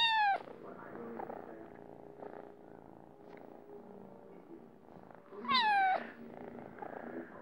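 A tabby-and-white kitten purring steadily, with two short high mews: one right at the start that rises and falls, and a louder one about five and a half seconds in that falls in pitch.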